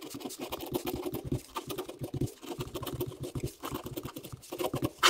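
Ballpoint pen writing on paper: quick, irregular scratching strokes of block capitals, with one sharper, louder stroke near the end.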